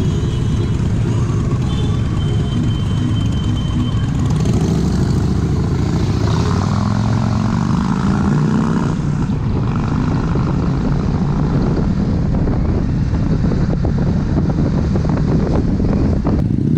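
Kawasaki Versys motorcycle riding steadily at road speed: a continuous engine drone under heavy wind noise on the microphone.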